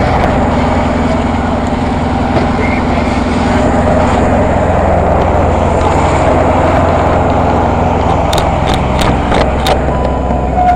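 Fire engine running steadily while under way, with a few short clicks near the end.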